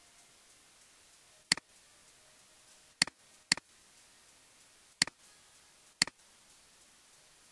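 Computer mouse button clicked five times at irregular spacing, each a sharp press followed at once by a softer release, over a faint steady hiss.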